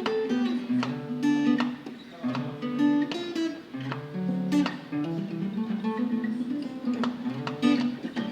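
Guitar music: a guitar picking a bright, repeating melody over bass notes that change every second or two.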